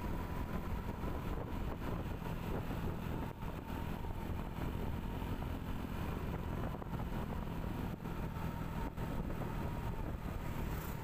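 Motorbike riding at steady speed on a paved road: a continuous engine hum mixed with wind and road noise, with a faint steady whine above it.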